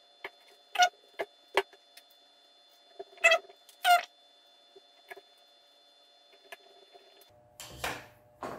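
Small screwdriver and graphics-card handling on a table: a series of short, sharp clicks and taps as the cooler shroud's screws are driven in and the card is set down, with two short squeaky sounds about three seconds in. Near the end, a scuff as the screwdriver is put down.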